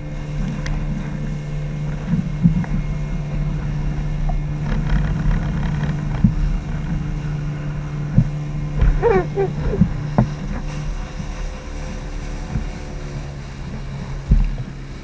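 Motorboat engine running steadily at speed, with irregular thumps as the hull hits the waves.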